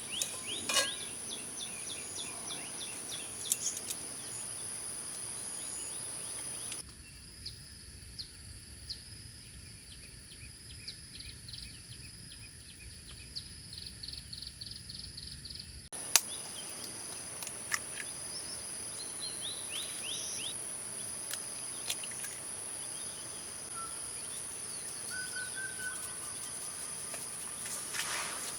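Outdoor ambience: a steady high-pitched insect drone with birds chirping in short rapid runs. About seven seconds in, the drone cuts out for some nine seconds, leaving a low rumble and a quick series of chirps, then returns.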